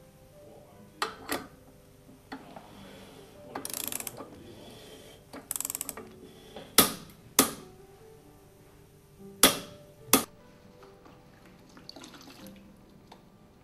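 Click-type torque wrench ratcheting in two short rattles, with several sharp single clicks, the loudest near the end, as it reaches its set torque of 100 Nm.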